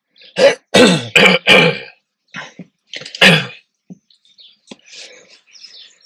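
A person clearing their throat and coughing: a cluster of short loud bursts in the first two seconds and one more about three seconds in.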